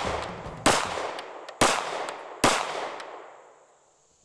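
Three pistol shots from a Smith & Wesson M&P M2.0 Compact 9mm, fired about a second apart. Each shot trails off in an echo over the range.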